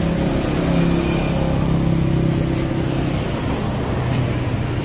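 A road vehicle's engine running close by: a steady low hum, strongest in the first few seconds and easing a little after.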